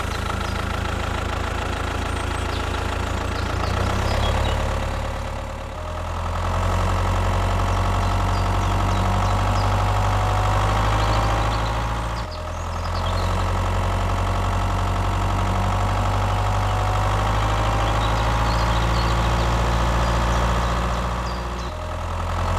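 Engine idling steadily with a low, even hum, shifting abruptly about six and twelve seconds in, with a faint whine slowly rising in pitch over it; the sound cuts off suddenly at the end.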